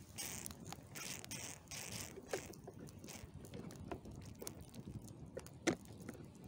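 Burning cardboard truck model crackling, with irregular small pops and one louder pop near the end.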